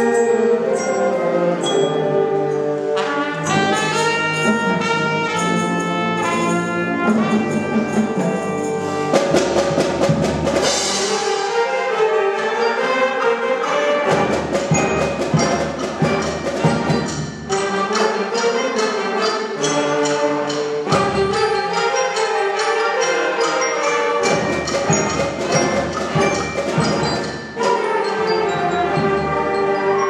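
Middle school concert band playing: clarinets, saxophones and brass together, with a steady beat of percussion strikes through the second half.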